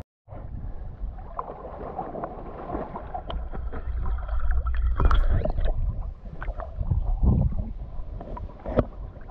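Lake water lapping and sloshing against a camera held at the surface, with a steady low rumble and scattered small splashes and clicks.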